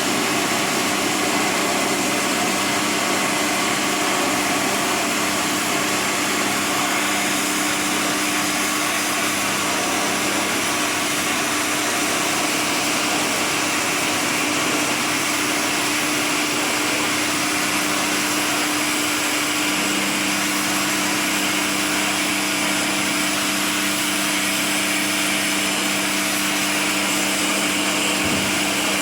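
Electric pressure-washer pump running steadily with the hiss of its water jet, a continuous motor hum under the spray.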